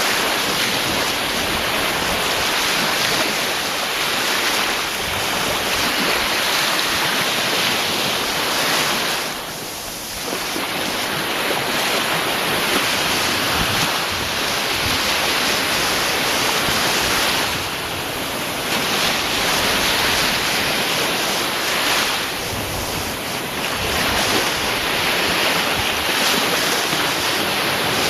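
Ocean surf: waves breaking in a continuous rushing wash, easing briefly a few times between surges.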